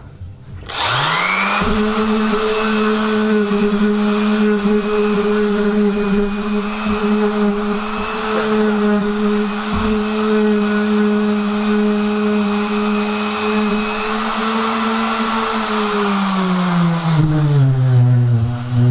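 Hofer Workzone corded random orbital sander starting up with a quick rise in pitch and then running flat out while sanding plywood, a loud steady motor hum; it has no speed control. About three-quarters of the way through, the motor's pitch drops and it runs on at the lower speed.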